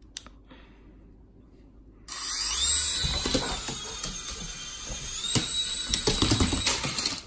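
Small electric propeller motor of a levitating Black Panther flying toy whirring with a high whine. It starts suddenly about two seconds in, glides up in pitch, then holds. Knocks and clatter come over it near the end, and it cuts off just before the end.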